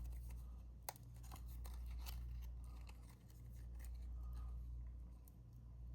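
Paper pieces being handled: light rustling and scattered taps, with one sharp click about a second in, over a low hum that swells and fades.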